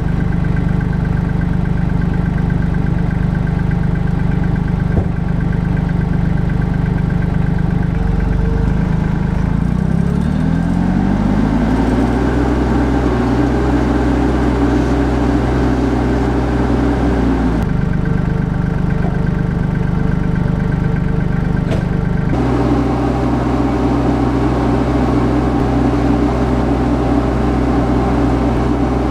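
Summit TX25 compact tractor engine running at a low idle, then revving up over a few seconds and holding a higher, steady speed as the tractor pulls off. Its pitch drops suddenly about two-thirds of the way through, then steps back up a few seconds later.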